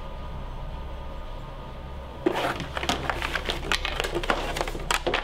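A Ouija board and its cardboard box handled on a wooden table, the board lifted out of the box: a run of knocks, scrapes and clatter starting a little over two seconds in, over a steady low hum.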